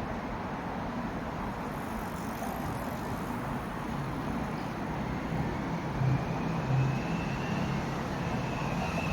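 Steady road traffic noise from passing vehicles, with a low engine hum that grows a little louder over the second half.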